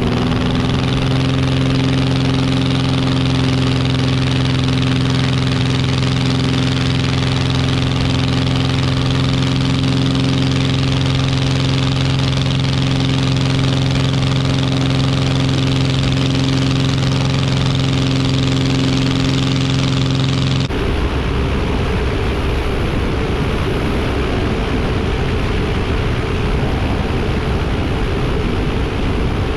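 Avid Flyer light aircraft's engine and propeller running steadily with an even hum. About two-thirds of the way through, the sound switches abruptly to a rougher, noisier engine sound.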